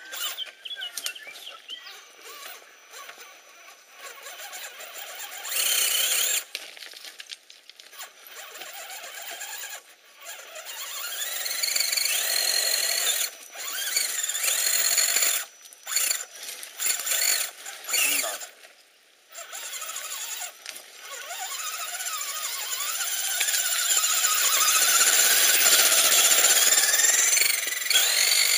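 Electric motors and gear drives of 1/10-scale Axial SCX10 RC rock crawlers whining in stop-start bursts, the pitch rising as they are throttled up. The whine is longest and loudest near the end.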